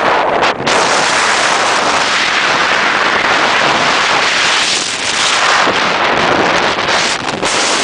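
Wind rushing over a hand-held camera's microphone while skiing downhill, mixed with skis sliding on packed snow. It is a loud, steady rush that drops back briefly about half a second in and again near six seconds.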